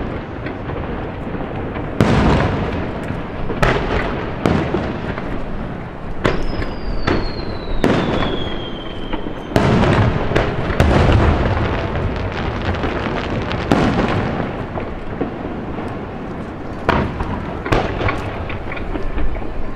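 Aerial fireworks shells bursting one after another in booms, with a long whistle falling in pitch about six seconds in.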